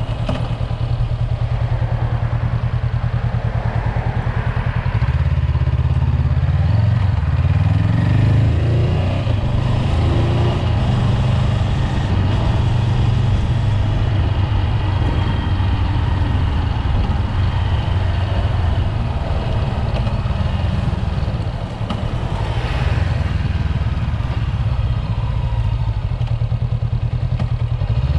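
Honda 400X's parallel-twin engine running while riding. It pulls up in revs a few seconds in and eases off briefly about two-thirds through.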